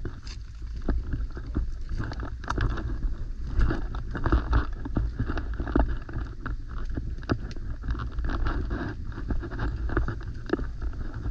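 Footsteps on a trail, a quick irregular run of knocks and scuffs, over a steady low rumble of wind on the microphone.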